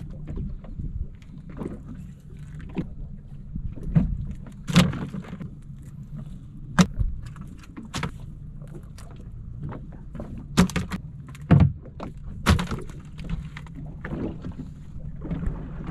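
Sharp knocks and thumps on a small open fishing boat, about half a dozen spread through, over a low steady rumble of the boat on the water.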